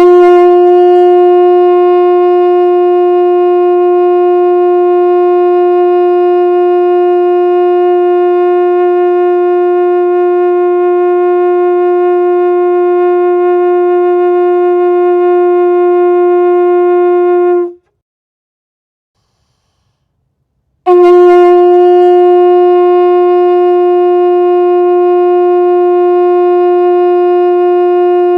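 Conch shell blown as a horn: one long steady note held for about eighteen seconds, stopping abruptly, then after about three seconds of silence a second long blast on the same note.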